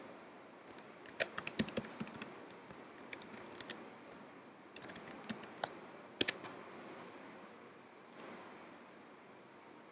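Typing on a computer keyboard: a run of keystrokes, a brief pause, then a second shorter run, followed by a sharper double click about six seconds in.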